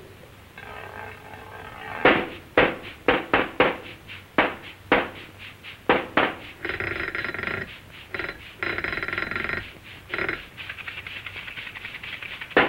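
Early sound-cartoon effects: a run of about a dozen sharp knocks, then two stretches of raspy buzzing, then a quick patter of light clicks.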